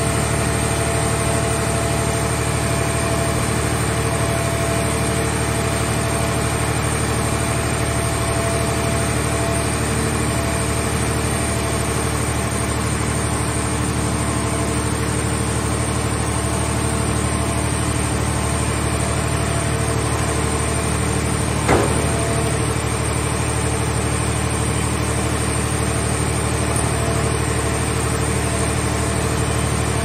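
Mobile car baler's power unit running steadily with several even tones while its hydraulic grapple crane lifts a scrapped car over the press chamber. One sharp knock about two-thirds of the way through.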